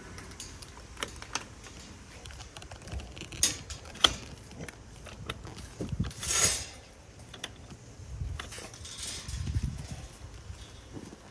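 Scattered clicks, knocks and light clatter of things being handled, with a sharper knock about four seconds in and a brief rustling swish around six seconds in.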